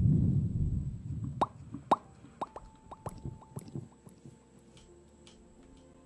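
Close-miked ASMR mouth pops: about five sharp, wet pops over two seconds, each with a short ringing note. Before them, a low rumble of hands rubbing over the microphone dies away.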